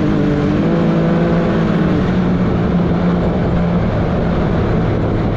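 Can-Am Maverick X3 XRS Turbo RR side-by-side running off-road, its turbocharged three-cylinder engine note clear at first, then easing off about two seconds in into a loud, steady rushing noise.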